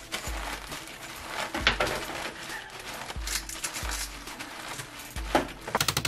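Flamin' Hot Cheetos crushed by hand inside a plastic zip-top bag: plastic crinkling and crumbs crunching, with dull low thumps from time to time. Near the end a fast, even run of sharp strokes comes in.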